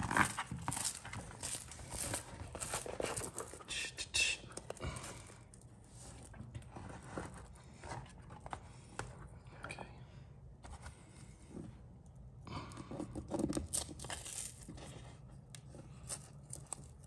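Textured wallpaper rustling and crinkling as a hand handles it and lifts its edge away from a rounded wall corner, in two spells: one over the first few seconds and another about three-quarters of the way through.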